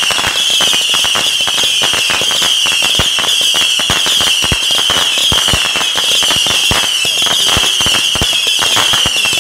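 Consumer fireworks firing: a dense, irregular run of cracks and pops from shots and crackling effects, over one continuous high-pitched whistle.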